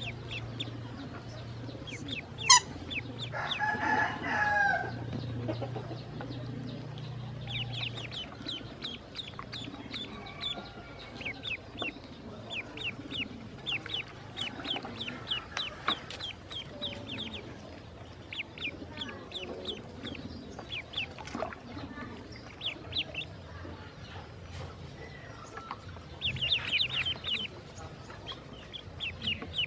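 Ducklings peeping: many short, high-pitched peeps in quick succession. A sharp click comes about two and a half seconds in, and a longer, lower call with a wavering pitch follows just after.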